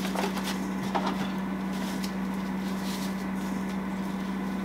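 A steady low hum, with faint soft rustles and ticks as cornmeal is poured from its bag into a measuring cup.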